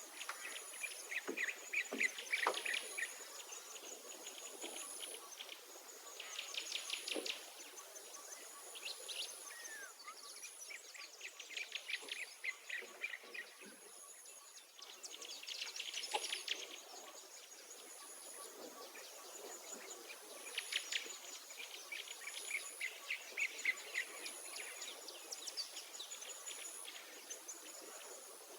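Outdoor birdsong: songbirds singing fast trilled phrases of a second or two that recur every few seconds. Behind them runs a thin, very high tone in short regular pulses.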